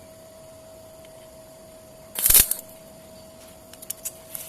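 A short arc-welding tack on steel: one harsh crackling burst lasting about a third of a second, about two seconds in, over a steady hum. A few small clicks follow near the end.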